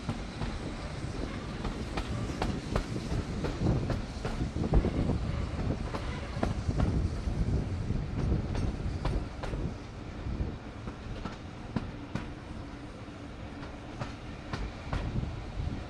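Carriage of a steam train running along the track, heard from aboard: a steady rumble with the clicks and knocks of the wheels over the rails.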